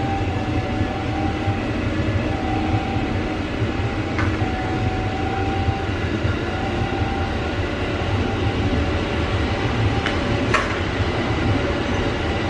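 Commuter electric multiple unit rolling slowly past, a steady low rumble with a faint pitched whine that comes and goes. Two short sharp clicks stand out, about four seconds and ten and a half seconds in.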